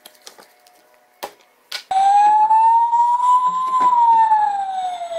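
A few faint squishes and clicks as slime is handled, then about two seconds in a toy ambulance's electronic siren starts loudly, one slow wail rising in pitch and then falling.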